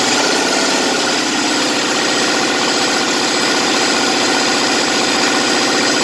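Diesel truck engine running steadily at high revs with the throttle floored, during a vacuum and pressure test of its low-pressure fuel supply. It comes up to speed just before and holds an even, loud drone.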